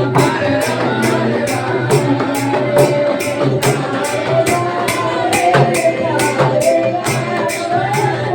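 Festival music: singing over a steady beat of sharp percussion strikes.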